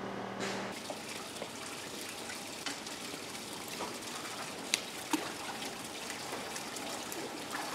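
Water trickling steadily in an indoor fountain pool, with two sharp taps about five seconds in as a mobile phone falls into the water.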